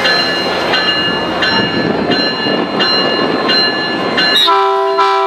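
Metrolink F59PH diesel locomotive ringing its bell, about one strike every three-quarters of a second, over the engine's running noise. Near the end the bell stops and the locomotive sounds a short multi-note horn blast.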